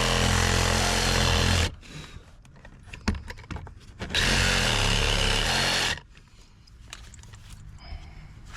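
Reciprocating saw (Sawzall) cutting wood: it runs until nearly two seconds in and stops, a few light clicks and a knock follow, then it runs again for a short burst of about two seconds and stops.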